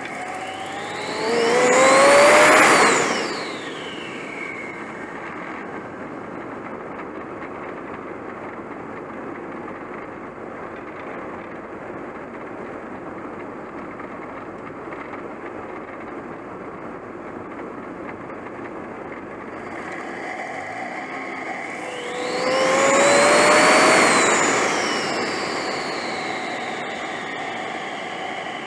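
Turbocharged GTP engine running under the hood with a steady drone, broken by two hard accelerations, one near the start and one about 22 seconds in. Each time a loud rushing noise swells and the turbo's whine rises, then falls away over a couple of seconds: the 'hurricane noise' of the turbo blowing into free air.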